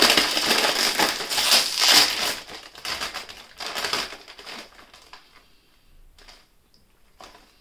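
Crisp plastic potato-chip bag being pulled open and crinkled, loud for about the first two seconds, then a few quieter rustles as it is handled.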